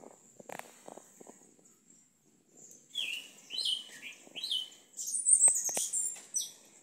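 A sabiá-preto (yellow-legged thrush) singing: a run of short, quick notes that change in pitch, starting about three seconds in and loudest and highest near the end.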